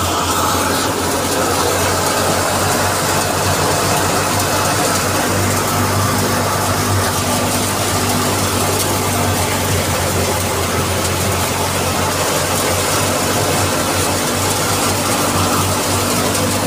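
Belt-driven processing machine running steadily, a V-belt spinning a large pulley on its shaft, with a constant low hum under dense mechanical noise.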